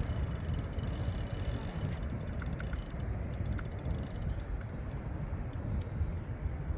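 Penn Authority 5500 spinning reel clicking and ratcheting in bursts under the strain of a large hooked wels catfish, densest two to three seconds in, over a steady low rumble.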